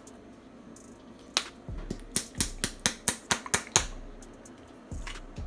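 A quick run of about ten sharp clicks, roughly four a second, as a bottle's cap and the small insert inside it are worked open before pouring.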